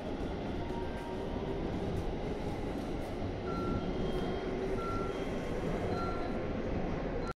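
JR Central 313 series electric train pulling out along the platform: a steady rumble of wheels on rails, with a few faint short tones over it. The sound cuts off suddenly near the end.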